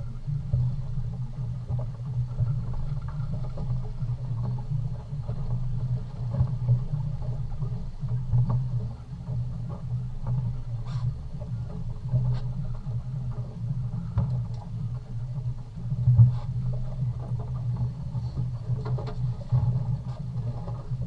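A boat's engine running with a steady low rumble, with a few faint light knocks over it.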